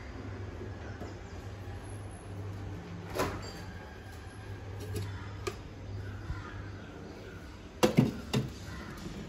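Kitchen handling noises over a low steady hum: a few scattered clicks and taps, then a cluster of loud knocks about eight seconds in as a refrigerator door is opened and a steel container is handled.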